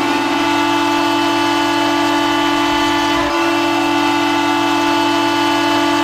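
Elmira Jackals' ice hockey goal horn sounding one long, steady blast, several tones at once like a train horn's chord.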